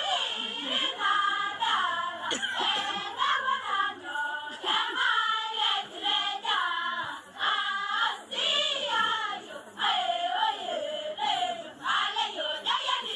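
Choir of female voices singing a melodic song.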